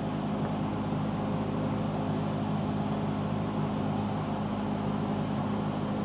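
Steady low mechanical hum with an even drone.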